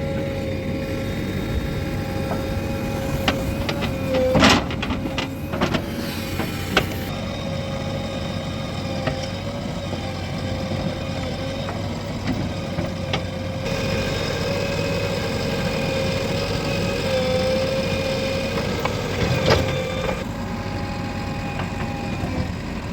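JCB 3DX backhoe loader's diesel engine running steadily with a held high whine over it, with a few sharp clanks about four to seven seconds in and again near the end.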